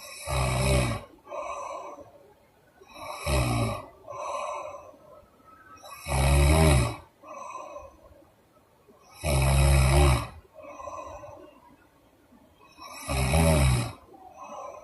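A sleeping woman snoring loudly in a regular rhythm: five rough snores about three seconds apart, each followed by a shorter, softer breath.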